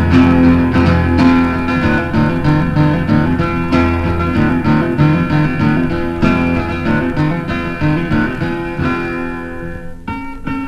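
Acoustic guitars playing an instrumental passage between sung verses, a steady run of picked notes. It thins out and drops in level about ten seconds in.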